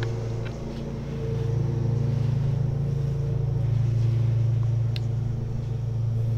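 A steady low hum with a few overtones, unchanging throughout, with a few faint clicks.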